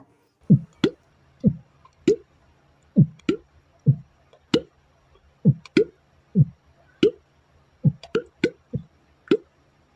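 A run of short plops, each a brief low blip dropping in pitch and ending in a sharp click, coming one or two a second at an uneven pace.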